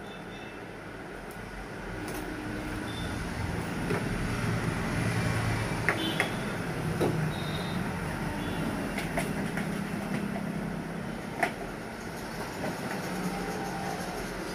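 A vehicle engine running close by, swelling about two seconds in and staying, with a few sharp clicks from cable and brackets being handled.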